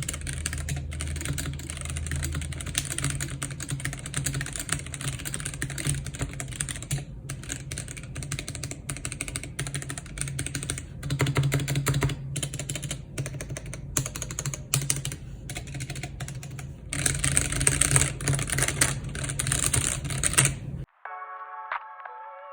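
Fast, continuous typing on a Gamakay K66 mechanical keyboard with stock, unlubed Gateron yellow linear switches, heard as a dense stream of key clacks with a few brief pauses. It stops about a second before the end, and music takes over.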